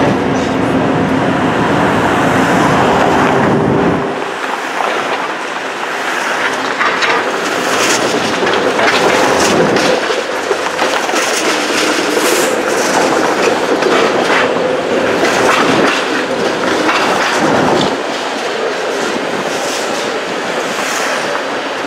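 TTC streetcar running on its rails, heard from on board: steel wheels clacking repeatedly over rail joints and track crossings. A steady drive tone and rumble are strong for the first four seconds, then drop away.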